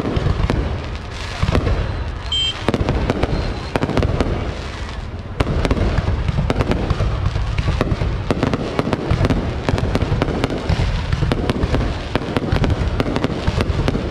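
Fireworks going off: a dense run of bangs and crackles over a low rumble, growing thicker about five seconds in.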